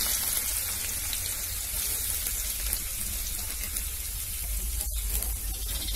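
Sliced onions sizzling in hot oil in a steel karahi, a steady hiss, with a brief dropout about five seconds in.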